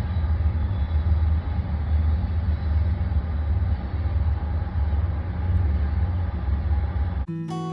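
A train going by, a steady low rumble. It cuts off abruptly near the end, and acoustic guitar music starts.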